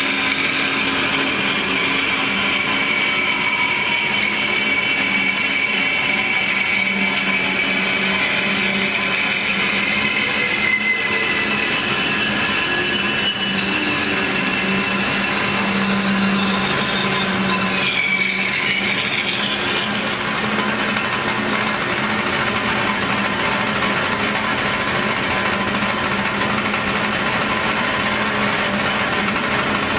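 Hyd-Mech S-20A horizontal band saw running steadily, a constant motor hum with a high whine that fades out about twelve seconds in.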